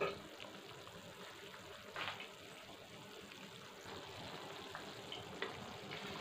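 Watery curry gravy at a rolling boil in a steel kadai: a faint, steady bubbling. A few light clicks and knocks come through it, the loudest right at the start and about two seconds in.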